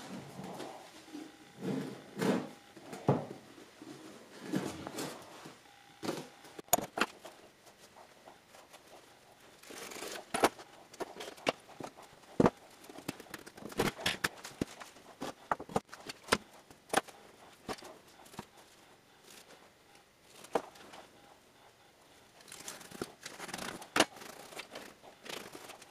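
Workbench handling noises from fitting a sheet-steel ammo can over ceramic fiber blanket and working the blanket with a steel rule and utility knife: scattered sharp clicks and taps at uneven intervals, with soft rustling and scraping early on.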